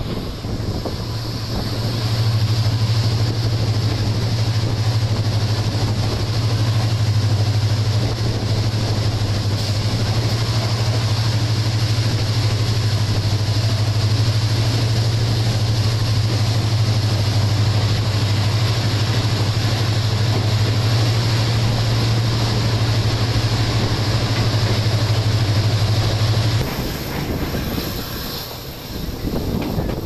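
Passenger train running, heard from inside the coach: a loud, steady low drone over wheel and rail noise, which drops away abruptly near the end.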